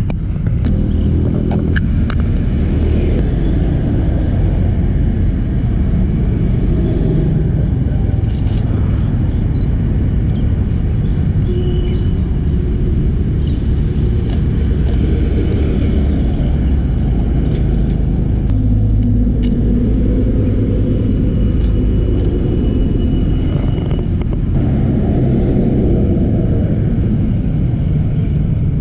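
Street traffic: vehicle engines running and passing over a steady low rumble, with faint short high chirps now and then.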